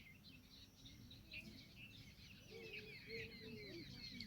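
Faint birds chirping and twittering, many short, rapid notes overlapping, busier in the second half.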